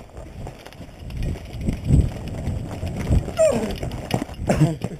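Running footsteps on a gravel path, each stride a heavy thump. Two short vocal sounds with falling pitch come near the end.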